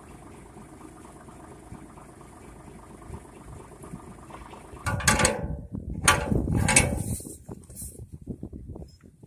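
Low steady engine hum from an idling tractor. About five seconds in, a run of loud mechanical clunks and rattles lasts for about three seconds.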